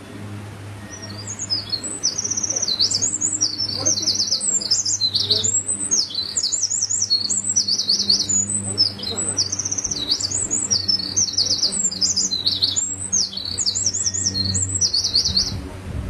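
Eurasian wren singing a long, loud run of rapid high trills and rattles, starting about a second in and stopping shortly before the end.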